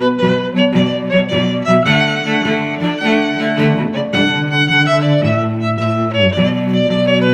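Background instrumental music on bowed strings: a violin melody moving from note to note over held low string notes.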